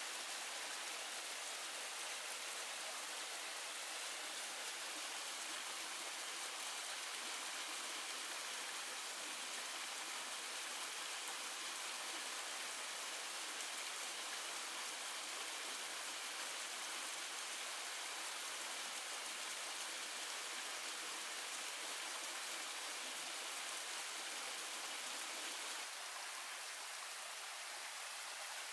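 Steady hiss of running water, with no distinct knocks or other events; it turns a little softer near the end.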